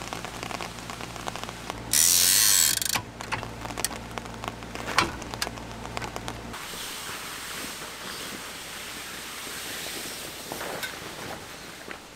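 Clicks and knocks of metal parts being handled, as a bike rack on a trailer is unfolded and set, with a loud hiss lasting about a second about two seconds in.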